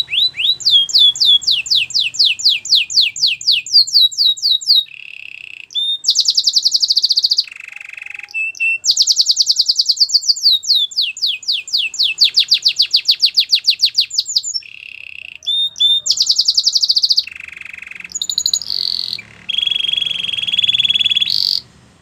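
White domestic canary singing a long song made of rolling trills: runs of quick, repeated falling whistles, faster rolls, and a held high note near the end, before it stops suddenly.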